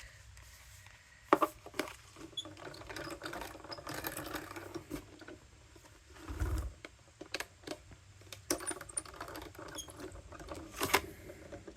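Scratching, rustling and clicking as a metal die, paper and plastic cutting plates are handled and shifted. There are sharp clicks about a second in and near the end, and a dull thump midway.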